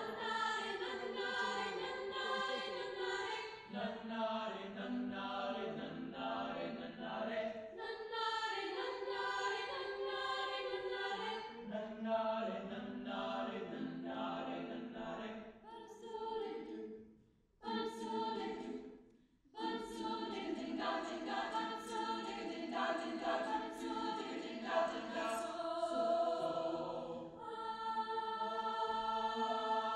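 Mixed-voice choir singing a cappella in harmony, holding sustained chords. The singing breaks off briefly a little past halfway, then resumes.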